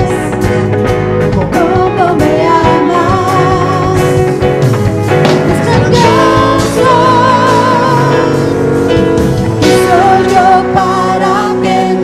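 Live worship band: several voices singing a Spanish-language worship song together, with wavering sustained notes over keyboard and electric guitar chords and a steady beat.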